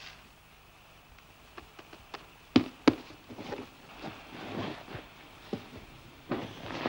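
Rustling of a sleeping bag and clothes being handled and stuffed in, with two sharp clicks close together about two and a half seconds in.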